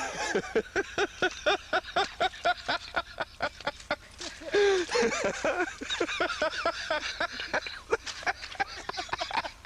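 A dog barking rapidly, about four or five short barks a second, with a brief pause about four seconds in before the barking resumes.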